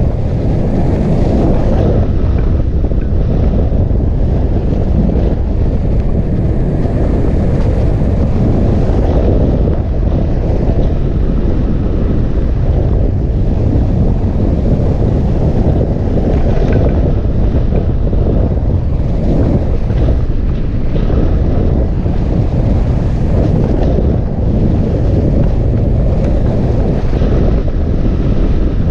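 Hang glider in flight: loud, steady airflow rushing over the glider and buffeting the camera's microphone, a dull rumbling hiss heaviest in the low end.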